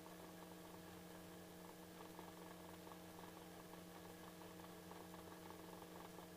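Near silence: a faint steady hum.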